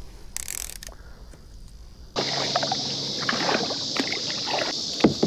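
Kayak paddle strokes: the blades dip and splash in the water with irregular knocks, over a steady high hiss that starts abruptly about two seconds in. A sharp knock comes near the end. Before that there are only quiet handling clicks.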